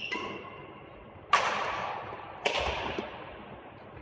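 Badminton rackets striking a shuttlecock during a doubles rally: two sharp smacks about a second apart, each ringing out in the echoing sports hall.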